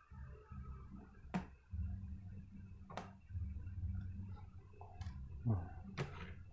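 Sharp plastic clicks and taps from an Asus X441B laptop being pried apart and handled, about five spaced irregularly a second or so apart over a low steady hum.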